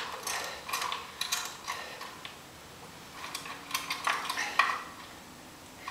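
Metal wrench clinking and clicking against a spark plug on a Rotax 377 two-stroke engine as the plug is unscrewed, in irregular clusters of small metallic clinks.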